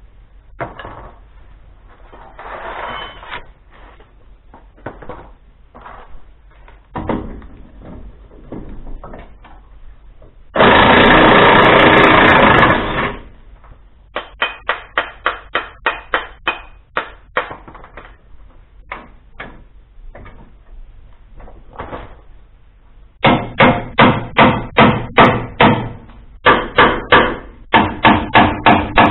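Tools working on the front bumper mounting bolts of a truck: scattered clicks and knocks, a loud continuous burst of about two seconds near the middle, then runs of sharp metallic strikes about three a second, loudest near the end.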